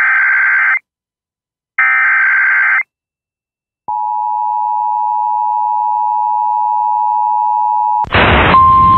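Emergency Alert System SAME header data bursts: a harsh burst of digital data ending just under a second in and a second one about two seconds in. Then the EAS two-tone attention signal (853 and 960 Hz together) holds steady for about four seconds, and near the end a loud burst of static gives way to a short steady single tone, the tail of the relayed NOAA Weather Radio 1050 Hz alert tone.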